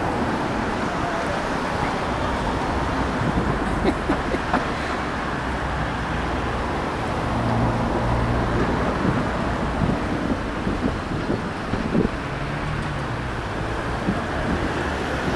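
Steady outdoor rumble of wind on the microphone, with a strong low end and a few faint short sounds; no music is heard.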